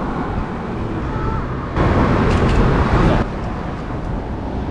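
City street traffic noise, a steady low rumble, with a louder rush of noise lasting about a second and a half near the middle.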